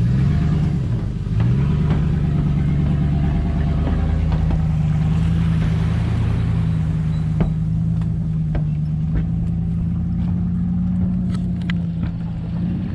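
Boat motor running at a steady speed, a loud, even hum that dips briefly and picks back up about a second in, then holds until it falls away at the very end.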